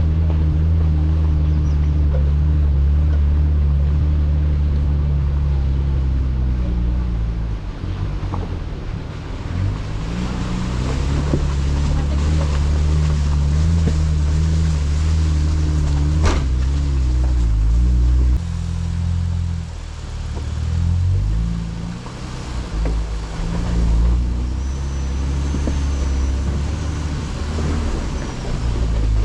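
Off-road 4x4 engine running at low revs as it crawls a muddy trail, its pitch and load shifting with the throttle, with a sharp knock about 16 seconds in.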